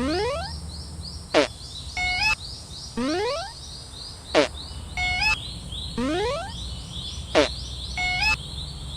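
A cartoon level crossing's made-up electronic alarm, repeating every three seconds: a rising swoop with high chirps, then a sharp falling zap, then a quick run of stepped beeps, over a steady low hum.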